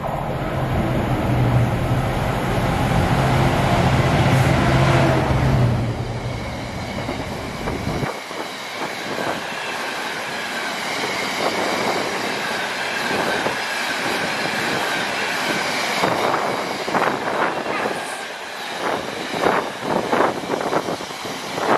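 A GB Railfreight Class 66 ('shed') diesel locomotive running loud through the station, its two-stroke V12 engine note strongest in the first six seconds and falling away at about eight seconds once it has passed. The container wagons behind it then rattle past, with quick wheel clicks over the rail joints and a high wheel squeal at times.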